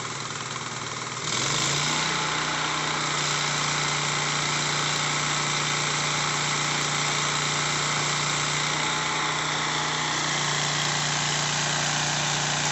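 Electric arc welding on steel sheet: a steady sizzling crackle that starts about a second in and holds, as a bead is run along a seam. Under it a steady engine hum steps up slightly in pitch as the arc starts, then holds.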